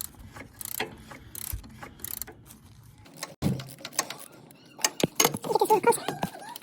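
Ratchet wrench clicking in short, evenly spaced strokes, about one every 0.7 s, as a 17 mm fitting on the transmission filter housing is unscrewed. After about three seconds come scattered metallic clinks and handling knocks, loudest near the end.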